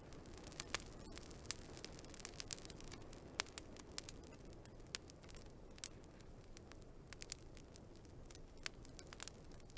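Wood fire crackling: irregular sharp pops and snaps, several a second, over a steady low background of burning.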